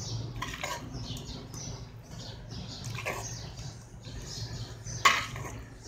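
A metal spoon scraping and clinking against a stainless steel pot and bowls as cooked macaroni is served out. There are a few clinks, the loudest and sharpest about five seconds in.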